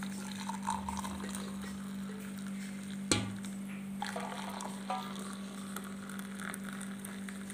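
Water poured into a ceramic mug with a spoon in it, as a tea or coffee drink is made. There is one sharp knock about three seconds in, over a steady low hum.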